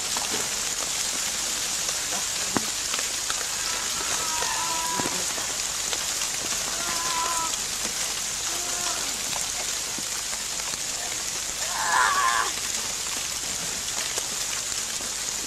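Steady hiss of rain falling, with faint distant voices, a single sharp click a few seconds in and a brief louder burst of noise about twelve seconds in.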